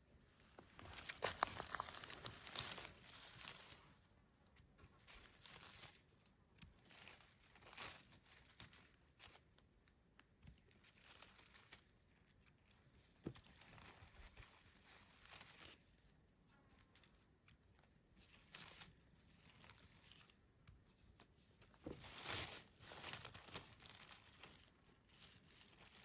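Faint, intermittent rustling and crackling of dry leaves and grass being pushed about, with a louder flurry about 22 seconds in.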